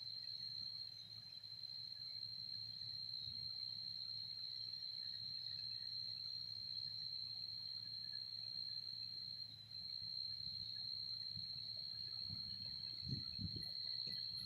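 Night insects, crickets or the like, trilling steadily at one high pitch without a break, over a low rumble that swells in a few bumps near the end.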